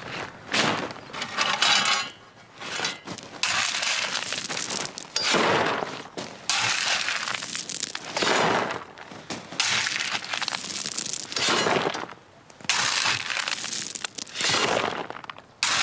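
A shovel scraping into a gravel pile and the gravel clattering as it is tipped into a wheelbarrow. The scrape-and-clatter repeats with each shovelful, every two to three seconds.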